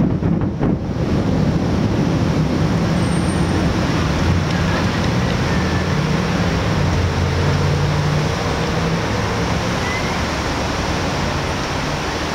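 The last firework bursts of the finale die away in the first second, then a steady outdoor din with a low drone runs on.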